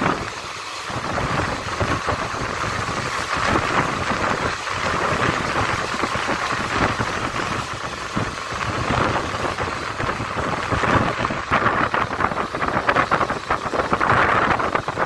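Passenger train coach running at speed, heard from the open window: a steady rushing noise of wheels on rails and passing air, growing choppier and more rattly in the last few seconds.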